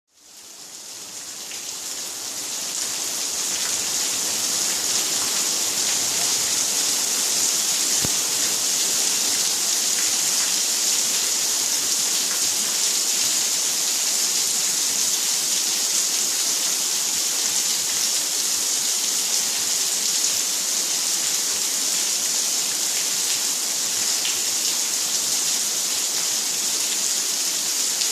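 Monsoon rain falling steadily, an even hiss that fades in over the first few seconds.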